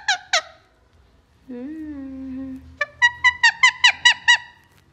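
A talking parrot's laugh: quick runs of short, high, falling notes, like 'ha-ha-ha'. A low hum comes in about a second and a half in, then a second run of about nine laugh notes.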